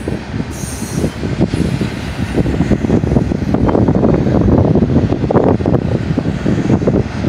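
Double-stack intermodal well cars of a freight train rolling past: steel wheels rumbling on the rails with many irregular clanks and rattles, growing louder about halfway in.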